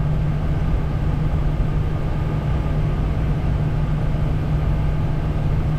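Steady cockpit noise of a Bombardier Challenger 350 in the climb after takeoff: the rush of air over the airframe and the run of its twin turbofans, with a constant low drone under it.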